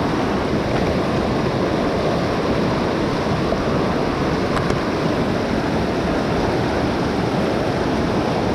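Mountain stream water rushing in a steady, unbroken wash.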